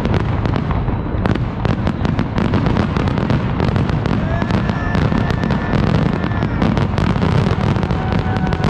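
Aerial fireworks bursting and crackling in rapid, overlapping succession, over a continuous low rumble.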